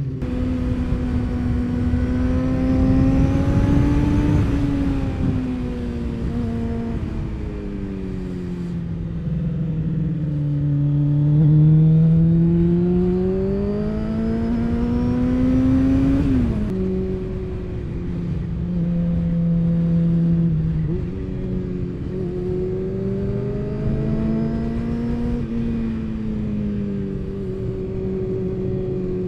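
Motorcycle engine under way, its pitch rising and falling as the rider opens and closes the throttle, with an abrupt drop in revs a little over halfway through. Wind rushes over the microphone underneath.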